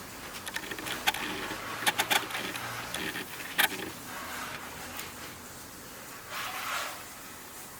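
A series of sharp clicks and knocks, the loudest about three and a half seconds in, then a brief scraping rub near the end.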